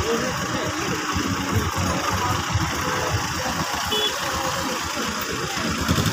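A vehicle engine idling close by, a steady low rumble.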